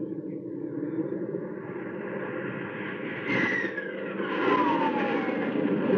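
Aircraft engine sound effect from an old radio drama, with a steady drone that swells as a fighter makes a pass at another plane. A whine falls in pitch from about three seconds in.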